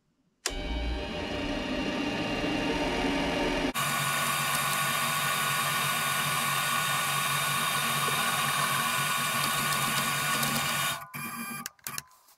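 Chinese mini lathe starting up about half a second in, its motor and spindle running with a steady whine while a light marking cut is taken at the shoulder. The sound changes abruptly a few seconds in, then the lathe stops near the end.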